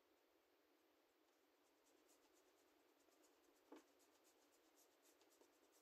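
Near silence, with faint, soft strokes of a paintbrush working acrylic paint on a canvas and one light tap about three and a half seconds in.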